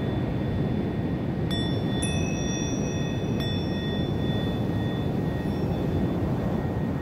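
A small handheld chime or bell struck three times, about a second and a half, two and three and a half seconds in. Each strike gives a clear high ring that lingers for several seconds over the steady rush of surf.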